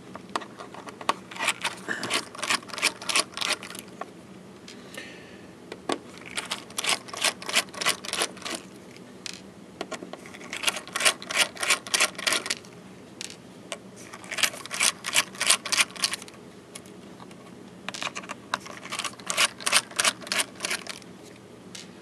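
Small Torx screwdriver backing the cover screws out of a laptop hard drive, heard as five bursts of rapid clicking, each lasting a second or two, with short pauses between screws.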